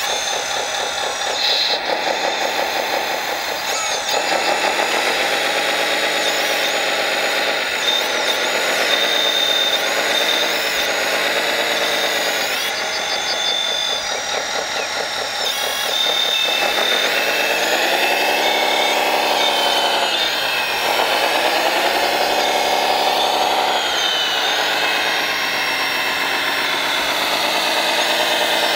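A 1/14-scale RC construction model's motors running, their whine rising and falling in pitch again and again as the machine speeds up and slows while working.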